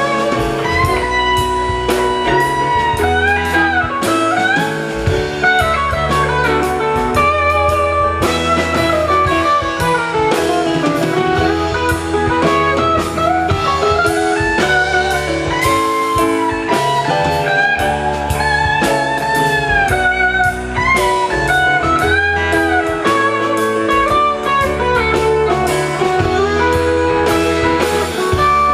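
Live rock band playing an instrumental passage: a lead electric guitar with bending notes over bass guitar and drum kit.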